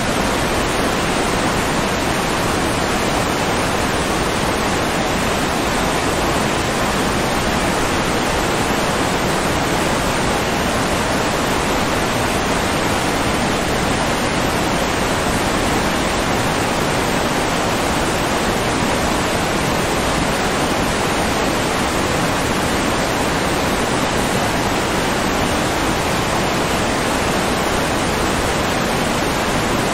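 Steady rushing water, an even hiss and rumble like a waterfall that does not change.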